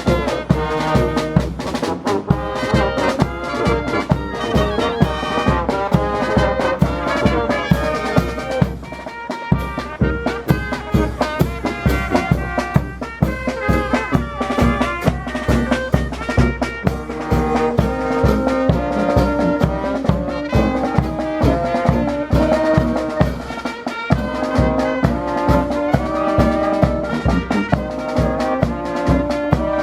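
Brass band music with trumpets and trombones over a steady beat.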